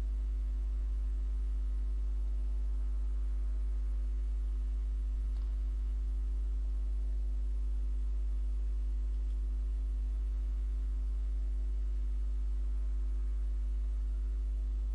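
Steady low electrical mains hum picked up by the recording microphone, with a faint single tick about five and a half seconds in.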